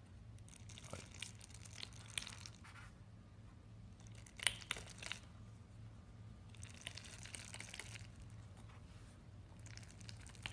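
Many thin plastic pins of a pin-art board crackling and clicking against each other and the perforated plate as they are pushed and bent, in several faint bursts of rustling with a sharper cluster of clicks about four and a half seconds in.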